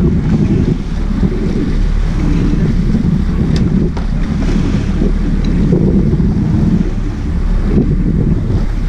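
Wind buffeting the microphone over the low steady rumble of a sport-fishing boat's engines, with sea water washing and splashing along the hull.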